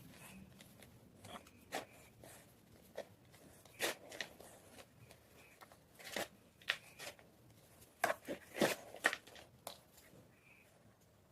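Block of white gym chalk being crunched in irregular crisp cracks and crumbles, with a cluster of the loudest crunches about two thirds of the way in.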